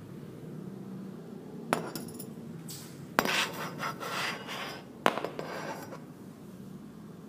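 Handling noise from a handheld phone moved about close to surfaces: three sharp clicks, the second followed by a couple of seconds of scraping and rubbing, over a steady low hum.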